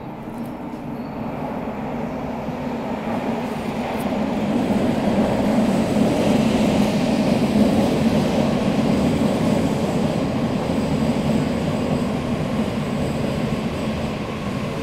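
Subway train rumbling through an underground station. The rumble swells over the first half, is loudest about halfway through, then slowly eases off.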